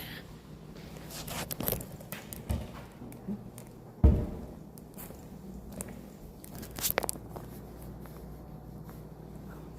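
Footsteps and scattered handling knocks and clicks over a faint steady low hum, with one sharp, loud thump about four seconds in.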